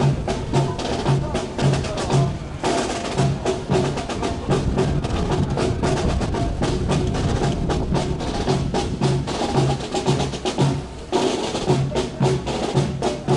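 Parade drums playing a steady marching beat, a low drum hit about twice a second under rapid sharp strikes.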